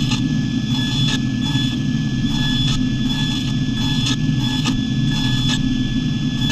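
Table saw running with its blade cutting slots into a wooden board: a loud, steady motor hum and blade whine, with short bursts of cutting noise about twice a second.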